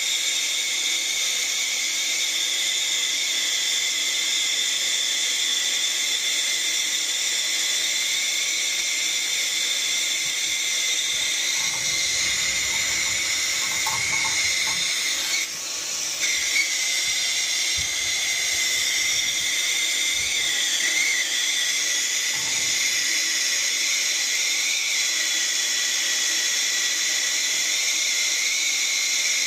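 Handheld gas torch burning with a steady hiss as it heats soldered copper joints to sweat out the old zone valve; the hiss dips briefly about halfway through.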